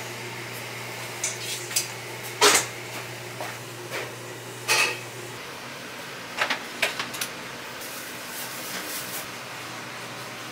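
Kitchen utensils and dishes clinking and knocking: a scattering of sharp taps, the loudest about two and a half seconds in and a quick cluster near the middle, over a steady low hum of kitchen equipment that stops about halfway through.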